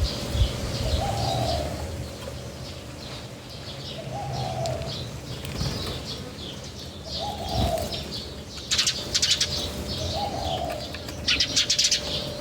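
A dove cooing at a steady pace, one short call about every two seconds, while small birds chirp continually. Two brief flurries of wing flaps come near the end.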